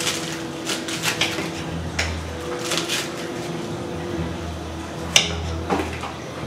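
Kitchen dishes and utensils clinking and knocking during cooking prep, with a handful of sharp, irregularly spaced knocks and the loudest one about five seconds in, over a low steady hum.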